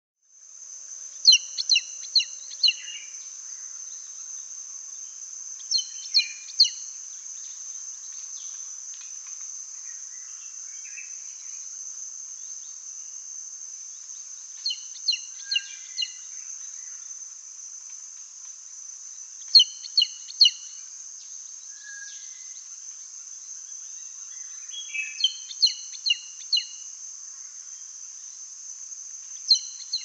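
Andaman serpent-eagle calling: a series of four or five short, sharp whistled notes, repeated six times at uneven gaps. Behind the calls runs a steady, high insect drone.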